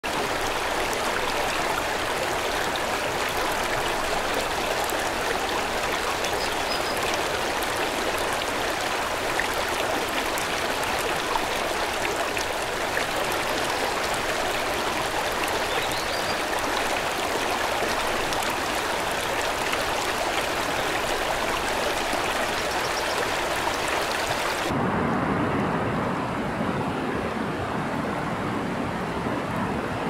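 A fast, swollen river rushing over rocks: a steady, loud hiss of water. About 25 s in it switches suddenly to a deeper, duller rush with much less hiss.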